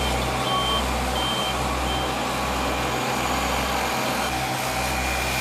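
Heavy road-works vehicle at asphalt paving, its engine running steadily, with a reversing alarm beeping about three times in the first two seconds before it stops.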